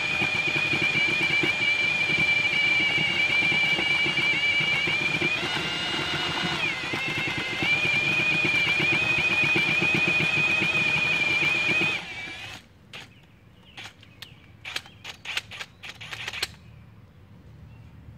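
Power drill with a paddle mixing bit churning shredded paper and water in a 5-gallon bucket, pulping the paper. The motor whine is steady, dips in pitch briefly about six or seven seconds in, and stops about twelve seconds in, followed by a few light knocks.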